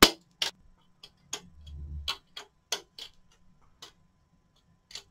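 Sharp clicks and snaps of hard plastic, about a dozen at irregular spacing, as robot-arm kit parts are cut from their plastic sprue and handled. A brief low rumble comes near two seconds in.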